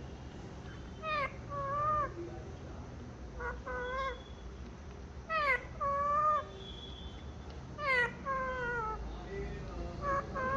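Pet parrot giving a series of short repeated calls, about six, each a quick downward swoop in pitch that settles into a brief wavering note.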